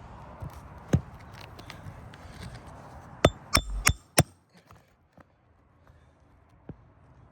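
Hammer driving the last roofing nail through an asphalt shingle: one light tap about a second in, then four sharp ringing blows in quick succession around the middle.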